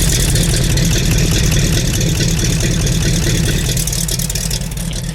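Rebuilt Ford 351 Cleveland V8 running steadily at idle through its exhaust, with a fast, even exhaust beat, on a cold start.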